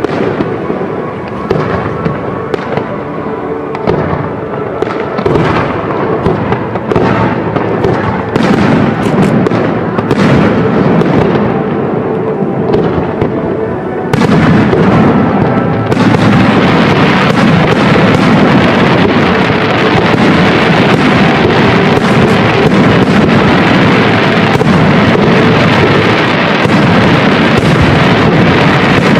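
Fireworks display: aerial shells launching and bursting with crackling, over music. The sound gets abruptly louder and denser about halfway through.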